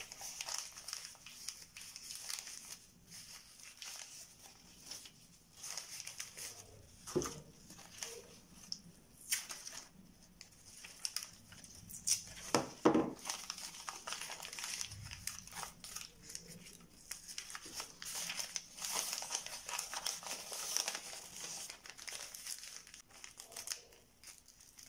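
Newspaper rustling and crinkling as it is wrapped and pressed around a bent aluminium-foil horn form, with a few sharper, louder crackles.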